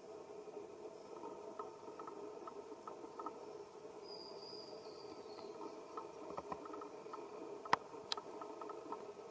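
Steady outdoor background drone with scattered faint clicks and a brief high thin chirp about four seconds in. Two sharper clicks come near the end, the first the loudest sound.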